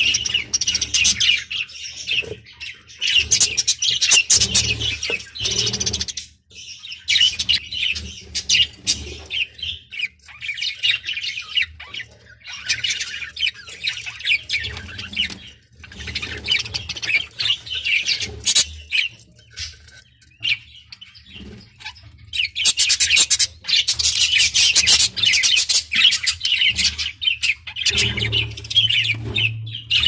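Budgerigars chattering and warbling, rapid twittering calls in bouts of a few seconds with short pauses between.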